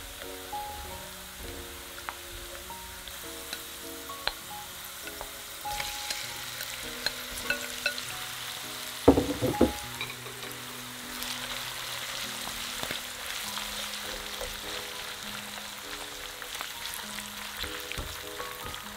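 Sliced garlic frying in olive oil, a steady sizzle with a few light spatula taps. About nine seconds in, raw shrimp go into the hot oil with a loud splattering burst, and the sizzle then grows louder and denser. Soft background music plays under it.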